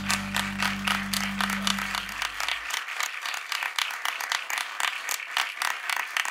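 Small audience applauding, with the band's last held low chord ringing out and dying away in the first two and a half seconds.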